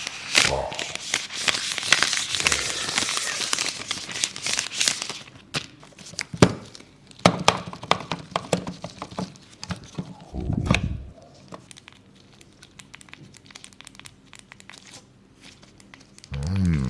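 Packaging being torn open and crinkled by hand: a dense stretch of crinkling and tearing for about the first five seconds, then scattered rustles and clicks, with a short low sound about ten seconds in.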